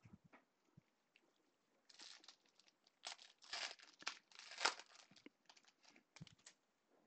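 A foil trading-card pack being torn open, with crinkling bursts over about three seconds and the loudest rip past the middle. A few light taps and rustles follow as the cards are pulled out.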